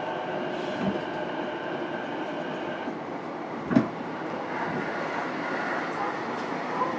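Running noise heard inside a JR East E233-series electric train's motor car: a steady whine and the rumble of wheels on rail, with a single knock just before four seconds in.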